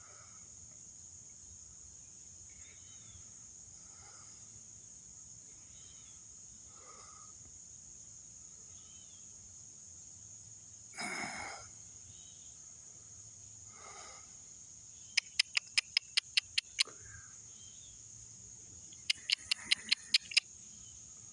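Steady high-pitched chorus of crickets, with faint scattered chirps. About halfway through comes one short burst of sound, and later two quick runs of sharp clicks, about six or seven a second, which are the loudest things heard.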